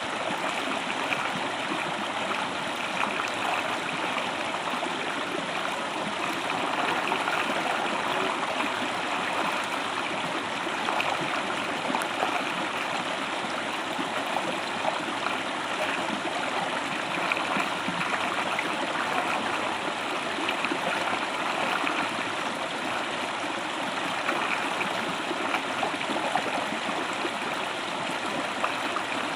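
A waterfall's water rushing steadily, an even, unbroken sound.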